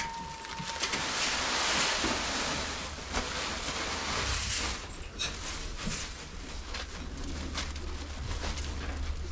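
Barley pouring out of a sack: a rushing hiss starting about a second in and lasting a few seconds before it cuts off, followed by rustling and a few light knocks.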